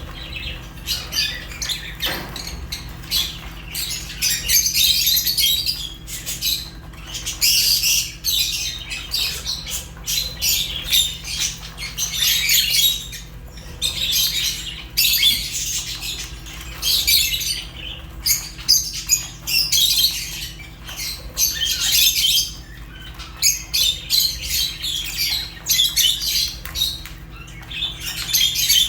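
Lovebirds chirping and squawking in rapid, high-pitched chattering bursts that come again every second or two, over a steady low hum.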